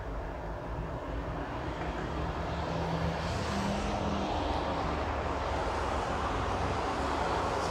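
Distant engine rumble from outside, slowly growing louder from about two seconds in.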